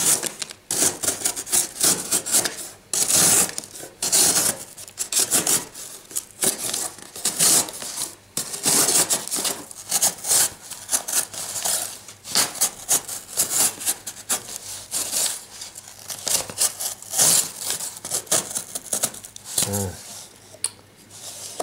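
Buck Vantage knife's factory-edged blade cutting cardboard in many repeated strokes at an uneven pace.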